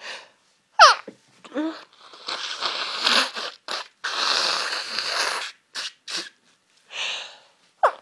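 A woman sneezing in a hay fever sneezing fit. A sharp sneeze with a falling voice comes about a second in and a smaller one follows. Long noisy breaths and a few short puffs come after.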